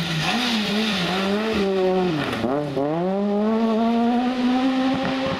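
Citroën C2 rally car's engine at high revs on a gravel stage, its note dipping briefly several times, then dropping sharply about two seconds in as it slows for the corner. It then climbs steadily as the car accelerates away. Gravel hiss from the tyres can be heard while the car approaches.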